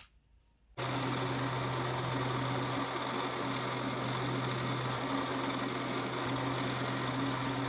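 Drill press motor switched on about a second in and running steadily with a low electric hum, ready to drill a straight hole through an aluminum-rod repair in a stripped tank nut.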